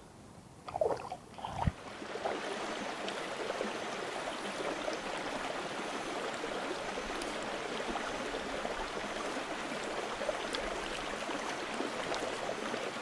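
A hooked trout splashing a few times at the water's surface, then from about two seconds in a steady sound of running water.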